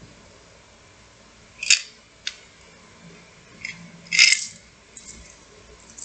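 A handful of coins clinking against each other and a small plastic LEGO drawer. There are a few separate sharp clinks, then a louder brief jangle about four seconds in.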